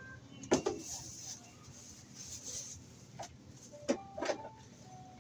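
A few sharp knocks and clicks, one about half a second in and a cluster near the end, from objects being handled, over a faint steady low hum.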